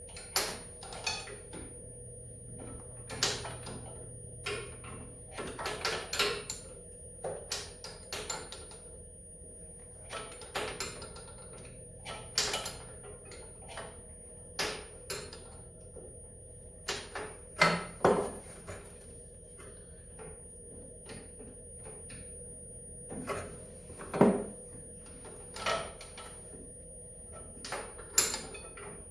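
Hand tools clicking and clanking against the snowmobile's metal parts in scattered, irregular knocks as it is taken apart.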